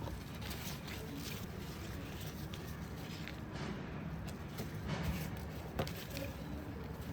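Steady background ambience with a low rumble and scattered light clicks and taps.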